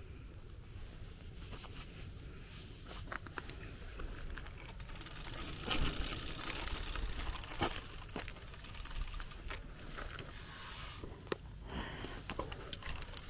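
Bicycle ridden along a path: a steady rumble of tyres and wind on the microphone, with scattered clicks and rattles from the bike. About five seconds in there is a short run of rapid ticking, like a freewheel ratchet while coasting.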